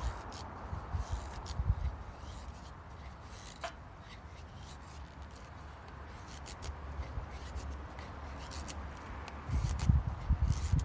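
Intermittent light scrapes and clicks of rubbing or scraping, with heavier low thumps starting near the end.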